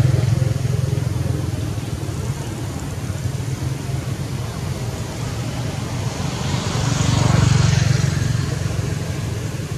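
A motor vehicle running, its engine and tyre noise swelling as it passes, loudest about seven and a half seconds in, then fading.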